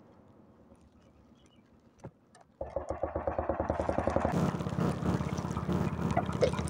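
Near quiet with a single click, then about two and a half seconds in a small engine cuts in abruptly, running steadily with a rapid putter.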